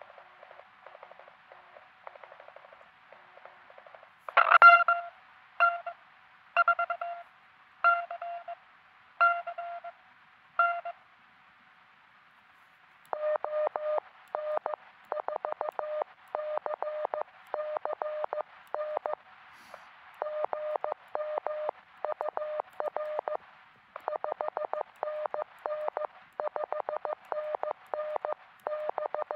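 Morse code (CW) tones from a truSDX QRP transceiver. A faint keyed signal in hiss gives way to a few louder, slower keyed tones, then after a short pause a long run of fast, evenly keyed Morse at a slightly lower pitch.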